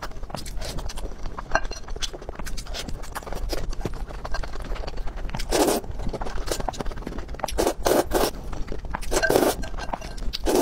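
Close-miked wet chewing of black bean sauce noodles, a dense run of small mouth clicks, broken by several louder short slurps in the second half.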